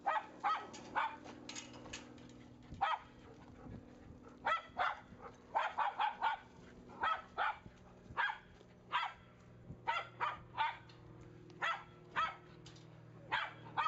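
Dog barking: repeated short, sharp barks at irregular intervals, some coming in quick runs of three or four, with brief pauses between.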